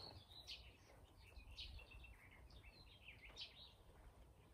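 Near silence with faint birdsong: a songbird's quick chirping phrases, over a low steady outdoor rumble.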